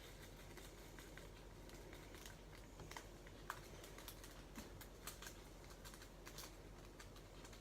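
Faint, scattered light clicks and ticks of small plastic pieces being handled, over a low steady room hum: diamond-painting drills and their little bags and containers being sorted.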